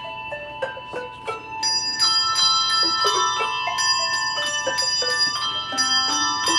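Handbell choir playing a tune: a run of struck handbell notes, each ringing on and overlapping the next. It grows fuller and louder about two seconds in.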